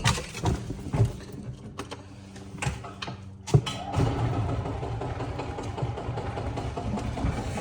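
A few sharp knocks and clicks, then from about three and a half seconds in a golf cart starts running, its mechanical noise steady and slowly getting louder.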